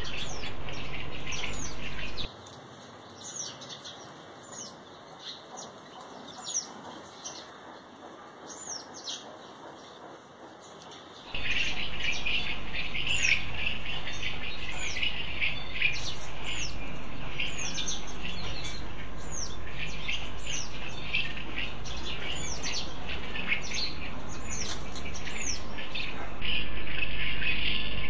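Birds chirping: a steady run of short, high, downward-sweeping chirps, repeated about once a second. The sound is quieter for a stretch at the start, and a denser high chatter comes in about eleven seconds in.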